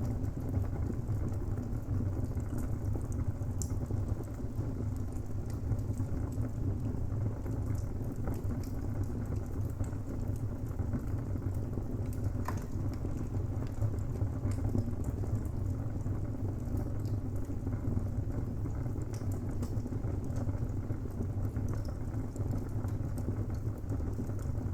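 Wood fire burning in a fireplace: a steady low rush of flames with frequent small crackles and pops of burning timber, one sharper pop about halfway through.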